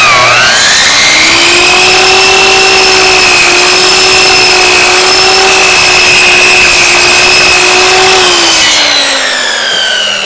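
Electric chop saw running at full speed as its blade cuts through a bone-in New York strip roast. The motor's pitch dips sharply right at the start, then holds a steady whine. From about eight and a half seconds in, the motor winds down with a falling pitch.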